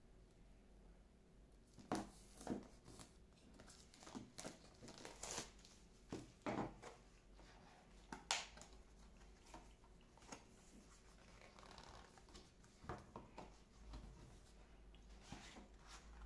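Packaging being handled and unwrapped: intermittent crinkling, tearing and small clicks and taps, starting about two seconds in after a short quiet stretch.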